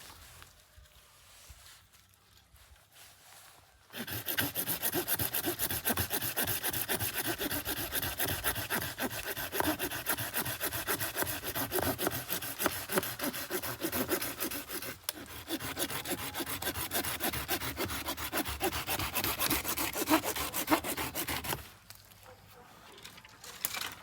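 Saw cutting through wood with steady, rapid rasping strokes, starting about four seconds in, pausing briefly partway through, and stopping near the end.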